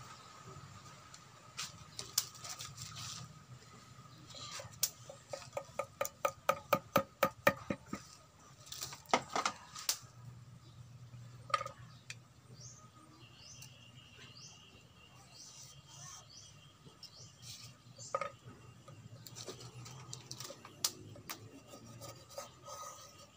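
Light wooden clicks and taps as bamboo tubes and a thin bamboo stick are handled on a wooden stool, with a quick run of about three clicks a second near the middle.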